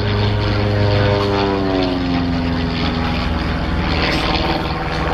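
Robin R2160 light aircraft's four-cylinder Lycoming engine and fixed-pitch propeller droning overhead, the pitch sliding steadily down between about one and three and a half seconds in.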